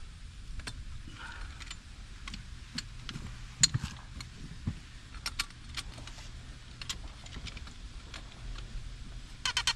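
Scattered light metallic clicks and taps from hand tools and fittings being handled, over a low steady hum. A loud, fast rattle starts just before the end.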